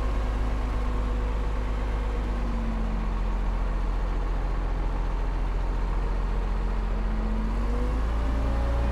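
Heavy diesel engine of earthmoving machinery running steadily under a constant low rumble, its engine note shifting slightly in pitch a couple of times.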